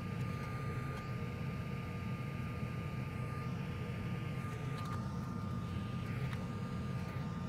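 Steady whir of fan-driven workbench equipment with a constant thin high whine running through it, and a couple of faint ticks in the second half.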